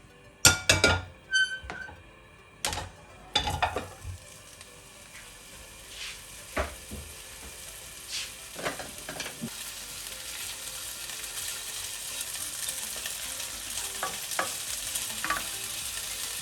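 Chicken wings frying in a pan with a little olive oil: a run of sharp knocks and clinks against the pan in the first few seconds, then a sizzle that builds steadily louder as the pan comes back up to heat.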